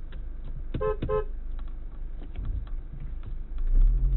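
Two short toots of the Audi Q5's car horn about a second in. Near the end the SUV's engine drone grows louder and steadier as the car pulls away up the rough dirt track.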